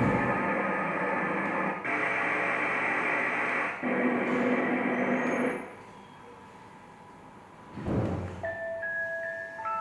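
Built-in sleep sounds of a Reacher R7 white noise machine, played through its small speaker and cycled through one after another, with an abrupt change to a different sound every couple of seconds. In the last second or so a chiming mallet-like melody begins.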